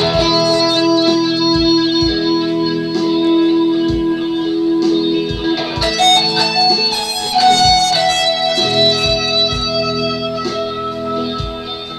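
Electric guitar playing a lead line with long held notes, the phrase changing about halfway through, over a steady low beat that thuds a little more than once a second.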